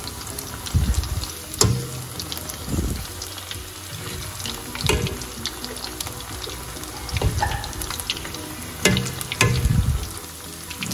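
Battered barramundi fish pakoras deep-frying in hot oil, a steady bubbling sizzle, broken by a few short, low thumps.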